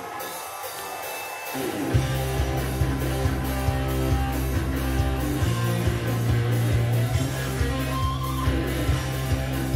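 Music from a CD played on a Technics SL-G570 CD player through a Pioneer A-30 amplifier and LTEX Symphony 6.4 two-way speakers: a guitar song that starts sparse and quiet, then about two seconds in heavy bass and a steady beat come in.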